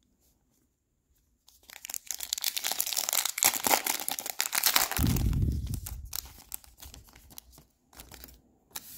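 A foil trading-card pack wrapper crinkling and tearing open by hand, starting about a second and a half in, with a muffled rustle close to the microphone around the middle and lighter crinkling near the end.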